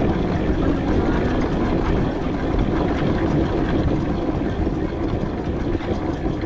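Steady mechanical running noise from a ride on a 4-inch scale McLaren steam traction engine on the move.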